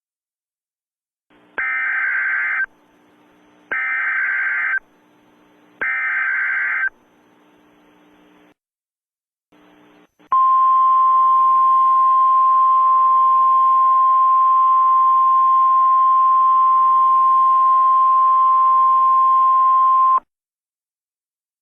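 Emergency Alert System header: three one-second bursts of warbling data tones, with a faint radio hiss between them. After a short break comes a steady single-pitch alert tone, held about ten seconds, which then cuts off abruptly.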